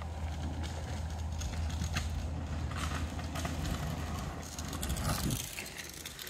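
Kick scooter wheels rolling over rough asphalt close by, a steady low rumble that drops away a little over five seconds in as the scooter passes.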